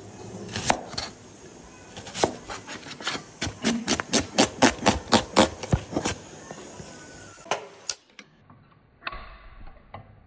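Serrated knife chopping an onion on a cutting board: a quick run of knife strikes, about four a second at their fastest, then a few single cuts before it stops about 8 s in.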